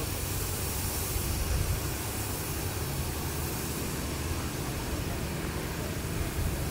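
Wind buffeting the microphone outdoors: a steady, unevenly fluttering low rumble under an even hiss.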